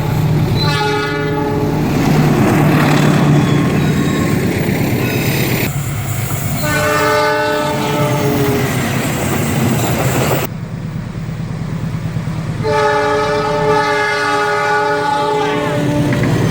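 CC206 diesel locomotive horns sounding the Semboyan 35 signal: three long multi-tone blasts, one near the start, one about six seconds in and one about thirteen seconds in, over the steady engine hum and rumble of a passing train. The sound changes abruptly twice, as separate recordings are joined.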